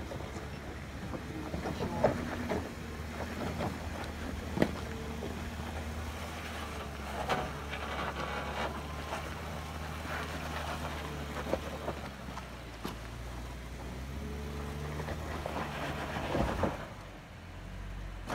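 Jeep Wrangler Rubicon engine running at low speed under load as it crawls up a rock ledge, with a few sharp knocks from the tyres and chassis on the rock. The engine note eases off near the end.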